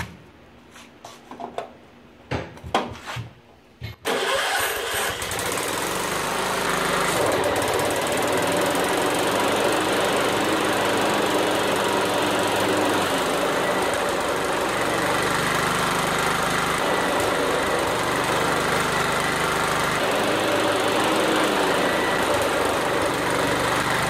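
A few clicks and knocks, then about four seconds in a John Deere STX46 lawn tractor's engine starts and runs steadily.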